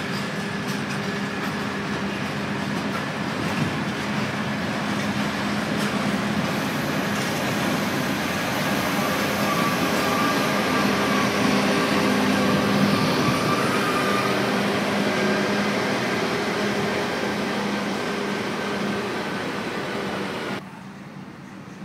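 Diesel locomotive passing slowly at close range, its engine running steadily and growing louder toward the middle before easing off, with a faint whine as it goes by closest. The sound drops off abruptly near the end to a quieter station background.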